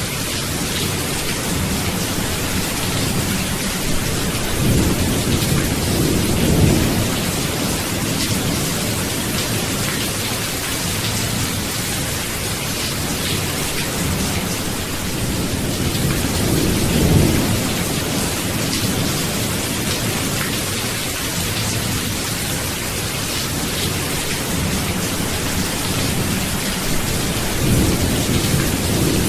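Steady rain falling, with low rolls of thunder that swell and fade three times, roughly ten seconds apart.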